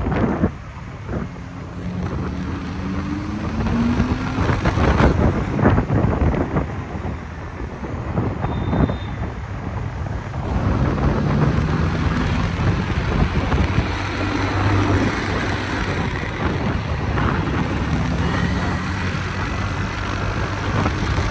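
Moving street traffic heard from a vehicle in motion: heavy wind buffeting on the microphone and engine noise, with engine notes rising in pitch several times as vehicles accelerate.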